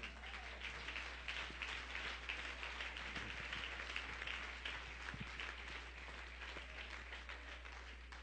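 An audience applauding, many hands clapping at once, strongest in the first few seconds and tapering off toward the end, over a steady low electrical hum.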